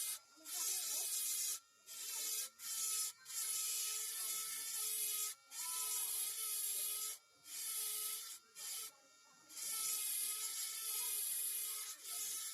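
Carving tool grinding and rasping on wood in repeated strokes of a second or two with brief breaks between them, over a steady whine.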